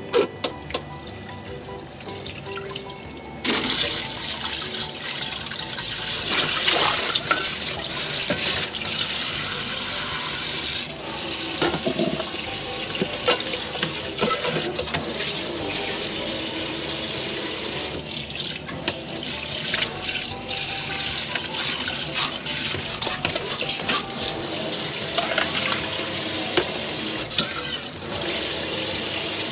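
Kitchen tap turned on about three and a half seconds in, after a few knocks of bowls being handled, then running steadily into a metal sink while a plastic bowl, a colander and a steel bowl are rinsed under it, with dishes clattering now and then.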